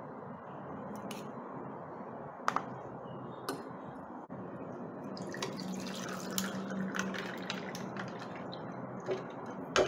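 Barley water poured from a glass jug into a glass over ice, splashing with small clinks from the ice. Before it, a few sharp clinks as lemon slices are dropped into the jug with metal tongs.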